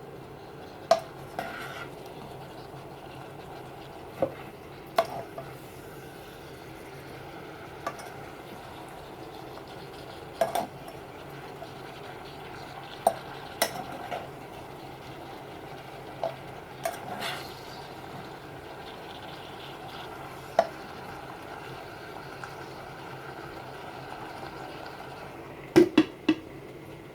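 A utensil stirring vegetables in a pan, with sharp clinks and knocks against the pan every second or few and a quick cluster of three near the end, over a steady low hiss.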